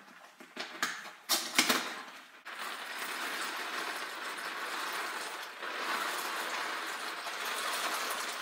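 A cardboard box of dry elbow macaroni is handled, with a few clicks and rattles of the pasta inside. About two and a half seconds in, a steady rattling hiss starts suddenly as the elbows stream out of the box into a pot of boiling water.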